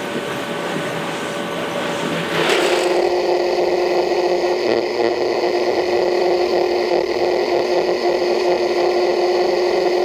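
A bench belt sander starts up about two seconds in and runs with a steady, pitched machine whine. Before that there is a rising wash of noise.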